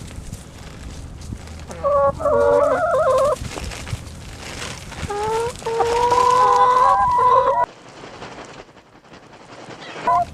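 Chickens calling: two loud, drawn-out calls, the first about two seconds in, the second longer and held on a steady pitch for over two seconds about five seconds in.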